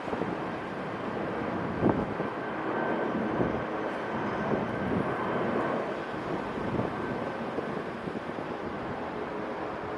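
Airbus A330-200 freighter's jet engines, a steady rumble with a thin whine over it, with a few short thumps of wind on the microphone.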